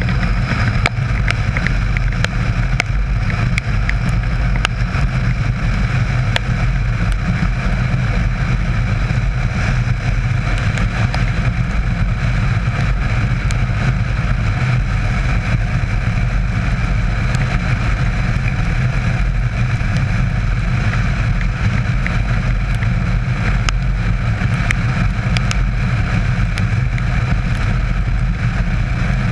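Steady wind rush and wet-road tyre hiss from a Yamaha Super Ténéré cruising at highway speed, with the bike's parallel-twin engine running underneath. Scattered sharp ticks of rain hit throughout.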